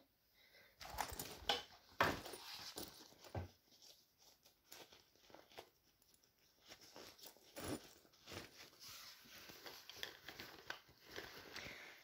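Rustling and scattered light clicks from handling a fabric backpack and its metal zipper pulls, with fabric shuffling against bedding.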